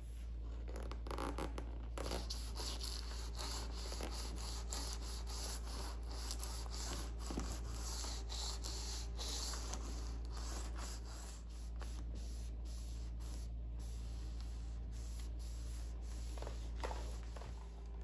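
A small brush scrubbing a refrigerator's rubber door seal in quick rubbing strokes to clean mould out of it, then a microfiber cloth wiping the seal, over a steady low hum.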